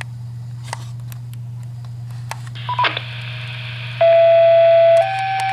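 Two-tone sequential fire-paging alert over dispatch radio. A steady lower tone comes in about four seconds in and holds for about a second, then steps up to a slightly higher tone that carries on. Before it there is only a low radio hum with a few faint clicks and a short chirp.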